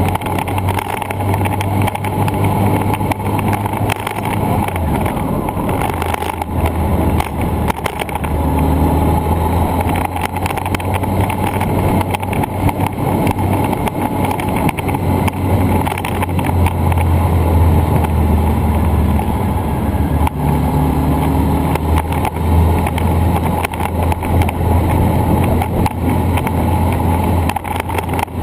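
Steady rush of wind and road noise on a moving camera's microphone, with a constant low rumble.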